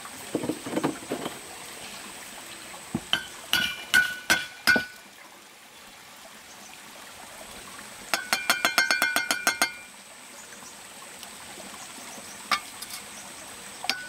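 Steel brick trowel scraping wet mortar, then striking a hollow clay brick: a few ringing clinks, then a quick run of taps, about seven a second, as the brick is tapped down into its mortar bed. Steady hiss of running water underneath.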